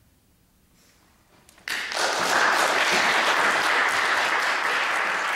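Near silence, then audience applause starts suddenly a little under two seconds in and carries on steadily.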